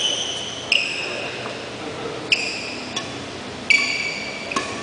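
Badminton rally: about five sudden, high-pitched pings, each ringing briefly, spaced roughly one to one and a half seconds apart as the shuttlecock is hit back and forth.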